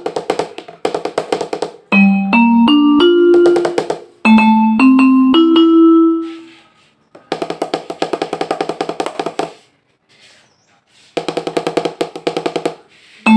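Roland SPD-20 electronic percussion pad played with drumsticks, its sounds coming through the output: runs of short pitched notes climbing step by step, between stretches of fast rolls. The unit is being test-played after a repair of its crackling output.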